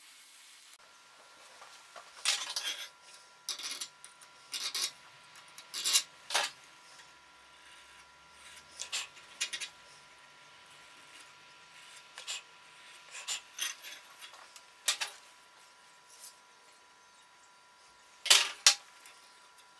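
About a dozen short, sharp scrapes and clicks of a white marking stick and metal measuring tools against an old steel file clamped in a vise, the loudest pair near the end. A faint steady high whine runs underneath.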